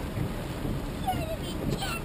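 Storm wind and rain making a steady low rumble around a car pulled over at the roadside, heard from inside the cabin. Faint voices come in near the end.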